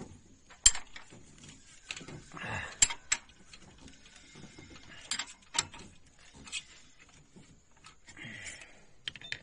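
Irregular sharp metallic clicks and knocks, the loudest about half a second in, from hand tools working on the open cylinder head of a Maruti Suzuki Alto engine during tappet clearance adjustment. Short scraping noises come between the clicks.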